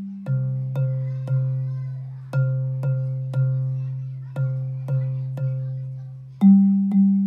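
Bass xylophone's wooden bars struck with yarn mallets, playing a slow bass line. A low note sounds in three groups of three strokes about half a second apart, each note ringing on, then a higher note is struck twice near the end.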